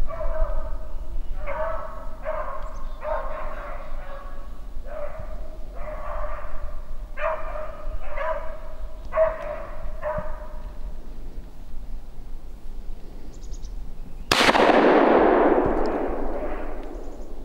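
Beagle baying on a rabbit's track, one bawl roughly every second, stopping about ten seconds in. A few seconds later a single shotgun shot cracks out and echoes away over about two seconds.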